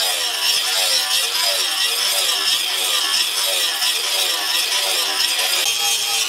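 Angle grinder with an abrasive disc grinding a steel leaf-spring knife blade, a steady high grinding hiss and motor whine.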